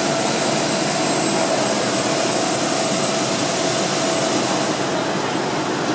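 Steady jet turbine noise from aircraft on the airport apron: an even hiss with a faint constant whine, unchanging throughout.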